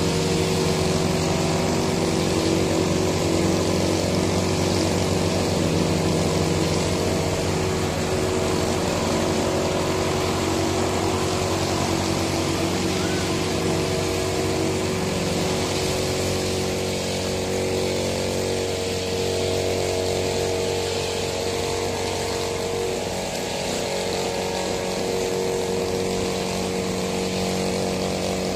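Honda 190cc four-stroke engine of a walk-behind lawn mower running steadily while it cuts grass, mixed with the engine of a backpack brush cutter working close by.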